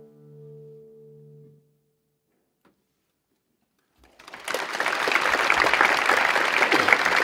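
The last chord of a classical guitar rings and fades away over about a second and a half. After a short silence, an audience breaks into applause about four seconds in, and it keeps going loudly.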